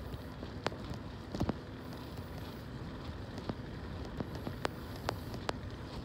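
Groove e-Ride e-bike riding along a paved path: a steady rush of tyre and wind noise, broken by about six irregular sharp clicks and ticks, the loudest pair about a second and a half in.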